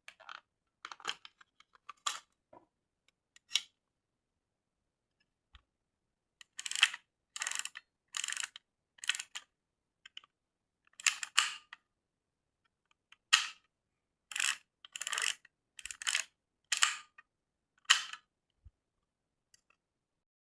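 A 35mm non-reflex film camera (Agfa-licensed Snapper) being worked by hand: a series of short sharp mechanical clicks from the shutter release and film advance, coming in small clusters with pauses between them. The clicks are faint at first and grow louder about six seconds in, as repeated shots are taken.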